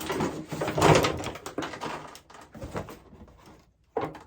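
Parts of a ring light being handled during assembly: a burst of clattering and rustling, loudest about a second in, then quieter fiddling and one sharp knock near the end.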